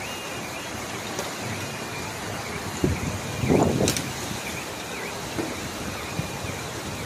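Steady rush of floodwater and rain, with a brief louder stretch about three and a half seconds in.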